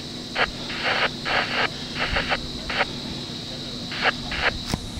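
Footsteps crunching on a dry, rocky dirt track: short, uneven scrapes about every half second, over a steady faint high hum.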